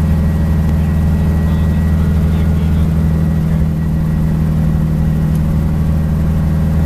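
Small helicopter's engine and rotor running steadily, heard from inside the cockpit: a deep even drone with a faint steady high tone above it.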